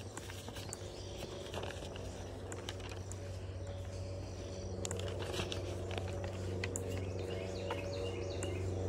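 Footsteps walking on an outdoor path, over a steady low hum that grows slowly louder.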